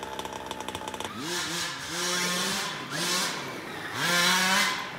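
Radio-controlled car's motor buzzing steadily, then revving up and easing off in four throttle bursts about a second apart.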